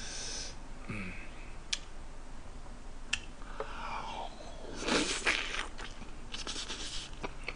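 A man eating a steak rice burger close to the microphone: a few sharp clinks of a fork and knife, then a bite and wet chewing, loudest about five seconds in.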